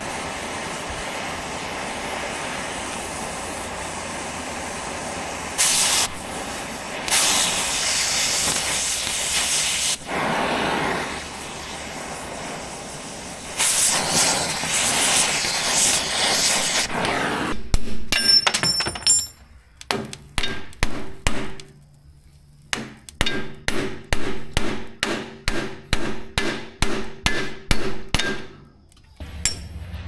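A steady rushing noise with several louder surges, then, a little past halfway, a run of metal hammer blows on the steel trencher chain and its carbide teeth, about two a second with a ringing clang, pausing briefly before carrying on.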